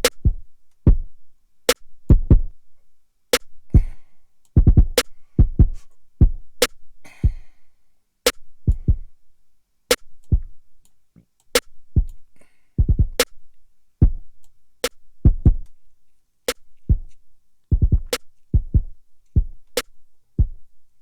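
Drum-machine beat looping in Maschine software: deep kick drums in an uneven pattern, with a sharp snare hit about every 1.6 seconds.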